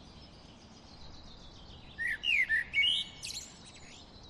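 Wild songbirds calling, with faint distant calls throughout. About two seconds in, one bird close by sings a loud phrase of quick rising and falling notes lasting about a second and a half.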